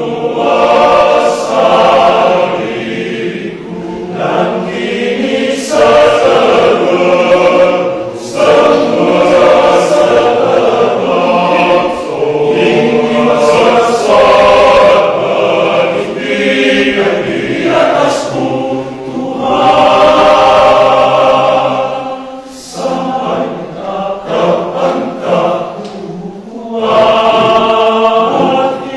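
Men's church choir singing in parts, phrase by phrase, with brief breaths between lines.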